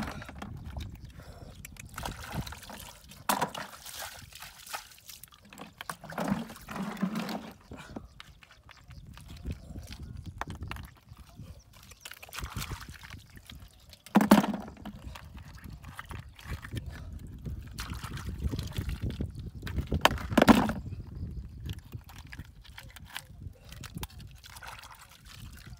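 Hands scooping freshwater snails out of wet mud and shallow water: squelching, splashing and the clack of shells, with two louder knocks about 14 and 20 seconds in, over a low steady rumble.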